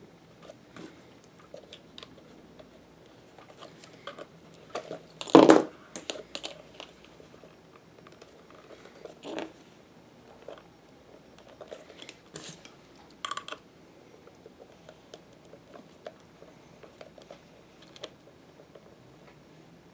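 Hand saddle stitching through a leather holster: needles pushed through the stitch holes and thread drawn through the leather, with scattered soft clicks and rustles of handling. A louder short rasp comes about five seconds in, with smaller ones later.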